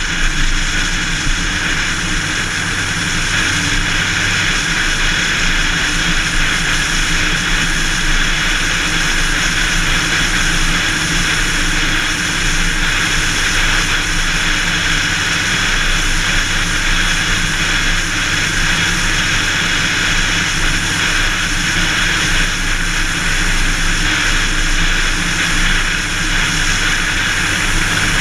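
Steady rush of wind and tyre noise from a car driving at highway speed, heard from a camera mounted outside the car on or above the hood, with a faint steady hum under it.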